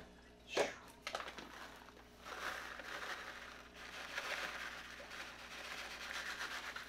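Fish food pellets being shaken out of their container and fed to an aquarium: a sharp click about half a second in, then a few seconds of uneven rustling.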